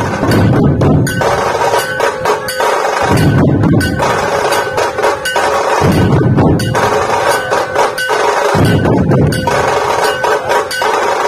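A procession dhol troupe: many large barrel dhol drums beaten together in a fast, loud rhythm. The deep beats come in heavy stretches about every three seconds, with a steady metallic ringing on top.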